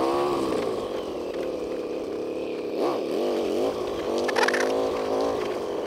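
Harley-Davidson V-twin engine running at low speed over cobblestones, its pitch rising and falling unevenly, with a brief clatter about four seconds in.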